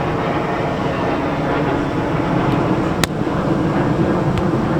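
A steady, loud low roar throughout, with a sharp slap of a volleyball being struck about three seconds in and a few fainter taps around it.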